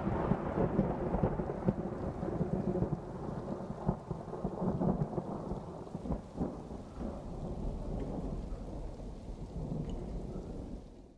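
Thunderstorm sound effect in a theatre: a long, rolling rumble of thunder over steady rain, slowly fading, cut off suddenly at the very end.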